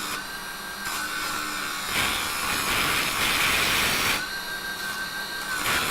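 Raitool 350W mini wood lathe running with a steady motor whine while a hand chisel cuts into spinning softwood; the rough scraping hiss of the cut swells from about two seconds in and eases off after about four seconds.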